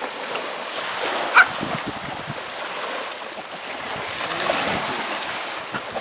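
Small surf washing onto a sandy shore, with wind on the microphone. About a second and a half in, a Pekingese puppy gives one short, sharp bark at the waves.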